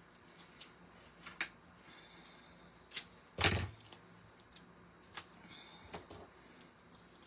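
Paper and cardstock being handled on a craft desk: scattered light taps and clicks, with one louder knock about three and a half seconds in.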